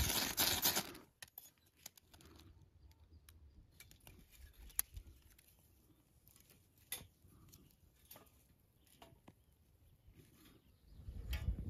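Scraping at a tinder bundle for about a second, then faint scattered sharp snaps and clicks as small twigs are broken and fed into a small metal twig stove to get it burning.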